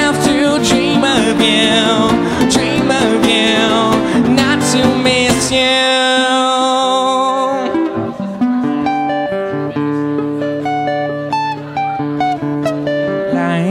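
Two acoustic guitars playing live: a busy strummed and picked passage, a chord held from about five and a half seconds in, then sparser single picked notes.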